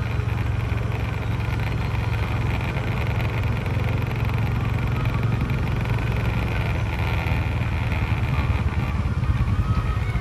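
A motor vehicle's engine running steadily, a low even rumble with no change in pace.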